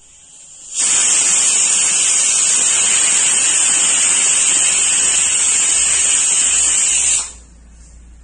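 A loud, steady hiss that starts suddenly about a second in and cuts off about six seconds later.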